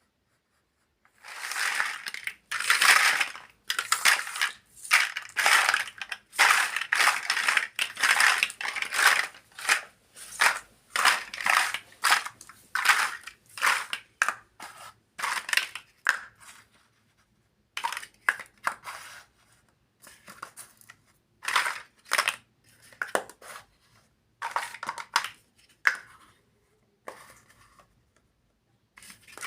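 Crinkling and rustling of plastic packaging from a building-block toy set, in rapid bursts of about half a second. After about 16 seconds it thins out into scattered shorter crinkles and clicks.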